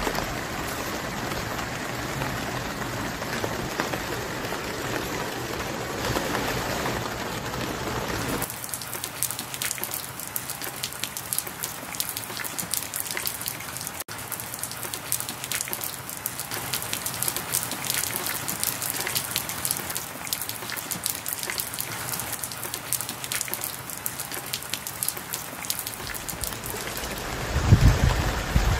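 Rain falling: a dense steady hiss for the first eight seconds or so, then lighter rain with many separate drops ticking. A louder low rumble comes in near the end.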